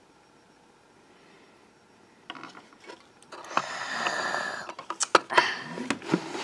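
Hands moving small plastic toy figures and a toy cup on a tabletop: rustling and scraping with a string of small plastic clicks and knocks, starting about two seconds in.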